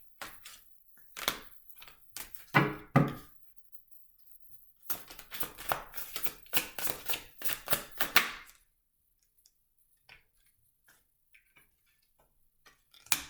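Tarot cards being handled on a tabletop: a few sharp clicks and two heavier thuds, then several seconds of rapid card slaps and clicks as the deck is shuffled.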